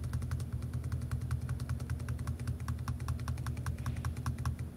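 Rapid, even clicking at a computer, about seven clicks a second, each click stepping the stop-motion animation on by one slide. A low steady hum runs underneath.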